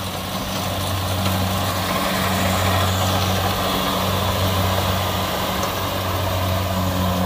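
Kubota rice combine harvester running at work, cutting and threshing rice: a steady engine drone with an even, low hum under the noise of the threshing.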